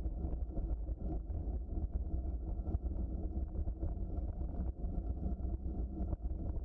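Bicycle rolling along a trail: a steady low rumble of the tyres and bike, with constant small rattles and ticks.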